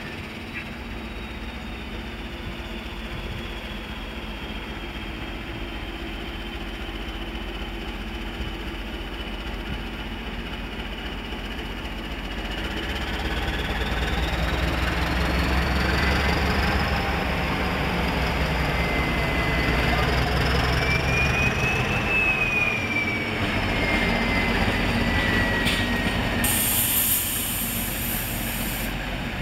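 CP 1400-class English Electric diesel locomotive running as it approaches, its engine note growing louder about halfway through. A high whine rises and falls in pitch over the louder part, and there is a brief high hiss near the end.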